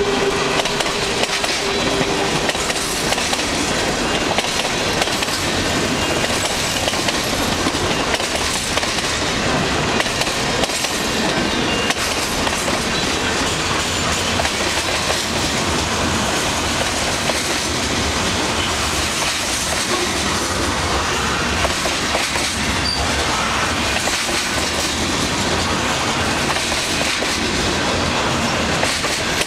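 Long mixed freight train rolling past at close range: a steady, loud rumble and clatter of steel wheels on the rails as car after car goes by.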